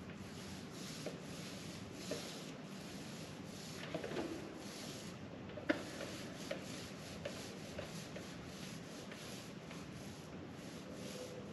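Paint roller worked back and forth over a Gulfstar 41's fibreglass hull, a faint, repeated rubbing swish of the strokes. A single sharp knock a little past halfway, with a few lighter clicks.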